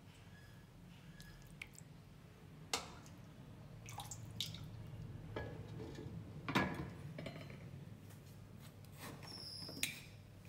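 Water dripping and sloshing in a cooking pot that holds a mashed paste. A handful of sharp clicks fall through it, the loudest about two-thirds of the way in, over a faint steady low hum.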